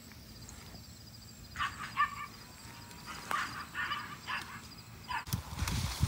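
Leafy branches rustling and shaking from about five seconds in. Before that, a few short animal calls sound in the background.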